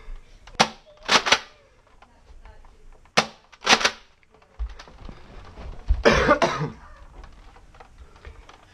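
Nerf blasters firing: a handful of sharp pops, some coming in quick pairs. A longer rough, breathy burst comes about six seconds in, over low rumbling movement.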